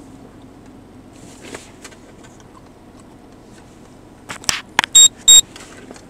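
Two short, loud electronic beeps about a third of a second apart, each a high steady tone, preceded by a few soft clicks and rustles over a low steady hum.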